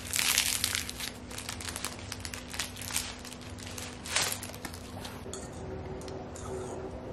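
Packaging wrapper crinkling and tearing as reed diffuser sticks are pulled out of it by hand: a run of short crackles, loudest in the first second, with another sharp crackle about four seconds in.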